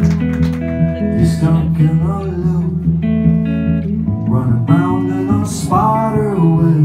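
Live band music: a Telecaster-style electric guitar playing over steady bass notes, with a melodic line that bends and slides in pitch. The bass moves to a new note about four seconds in.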